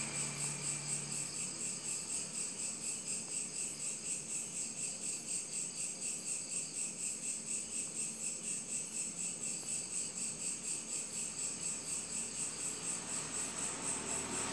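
An insect chirping steadily in a fast, even pulse, about four to five high chirps a second.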